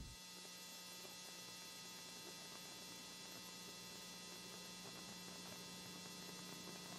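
Faint steady electrical hum with a low hiss underneath: the background noise of an old broadcast recording with no programme sound. The music tail cuts out right at the start.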